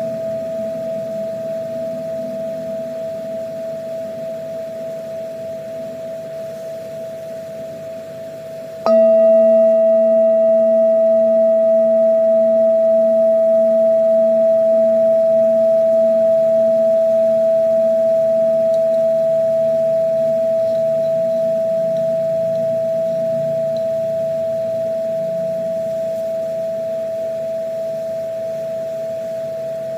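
A singing bowl ringing with one steady tone and a slow pulsing waver. It is fading at first, is struck again about nine seconds in with a brighter ring of overtones, and then fades slowly.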